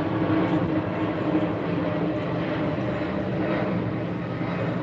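Steady machine hum with a few held low tones, running on without change.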